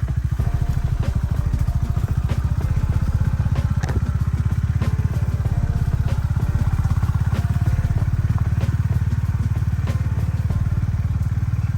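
Single-cylinder motorcycle engine running steadily on a trail ride, its firing pulses even and unbroken, with a few light knocks.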